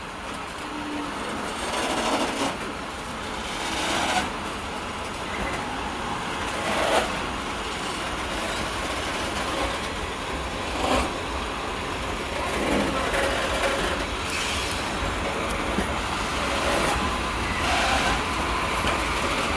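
Freight train of open high-sided wagons rolling past on the track, a steady rumble and clatter of wheels on rail with a heavier knock every two to four seconds as wheelsets pass.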